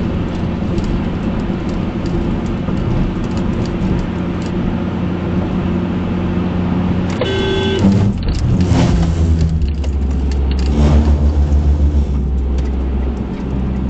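Steady road and engine noise inside a moving car. About seven seconds in there is a brief beep, and then a louder low rumble that pulses regularly toward the end.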